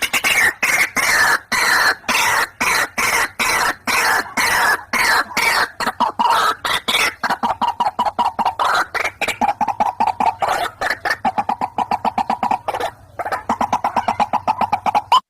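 White-breasted waterhen calls from a lure recording: a fast run of short, harsh notes repeated several times a second. At first the runs slide downward in pitch, then they settle into a steady, lower chatter of about five notes a second.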